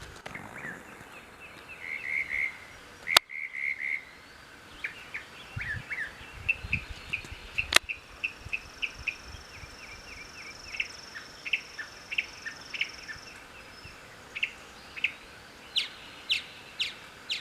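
Northern mockingbird singing a string of varied phrases: short chirps and repeated notes, ending in a quick run of down-slurred notes. A steady high buzz runs for about five seconds in the middle, and two sharp clicks come about three and eight seconds in.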